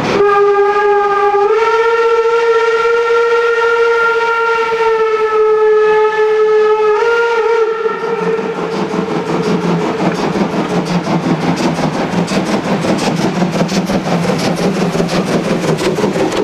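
Steam locomotive 24 009 (a former DR class 24) sounds one long whistle blast of about eight seconds as it leaves the tunnel, its pitch stepping up slightly twice. Once the whistle stops, the rapid, even beat of its exhaust takes over as it pulls its train toward the camera.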